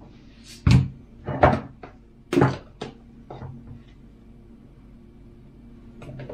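Five or six sharp knocks and taps as plastic seasoning containers, a salt bottle and a red-capped shaker, are handled and set down on a kitchen worktop while chicken wings are seasoned with salt and pepper. A faint steady low hum runs underneath.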